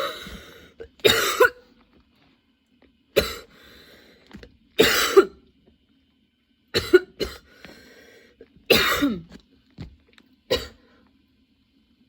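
A woman in a prolonged, nonstop coughing fit: about eight harsh coughs, some single and some in quick pairs, spaced a second or two apart, with breaths in between.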